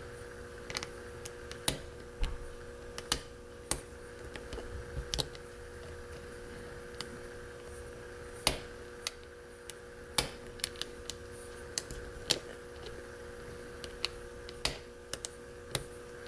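Light, irregular metallic clicks and scrapes of a hook pick lifting the pin stacks of a FarmerFreak 6-pin mortise cylinder held under a tension wrench, a few clicks a second and unevenly spaced, over a faint steady hum. The pins are binding with no counter-rotation or feedback.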